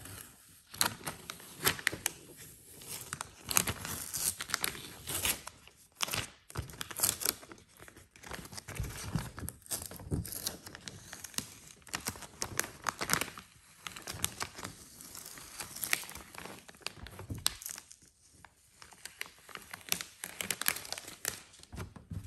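Clear gridded vinyl transfer tape being peeled off freshly laid vinyl decal letters, crackling and crinkling irregularly as it lifts away and bunches up.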